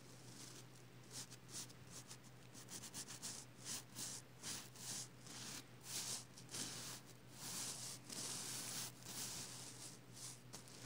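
A hand brushing over a reversible sequin pillow, the sequins flipping with soft, scratchy swishes. There are a few quick strokes each second, then a longer continuous stroke about two-thirds of the way in.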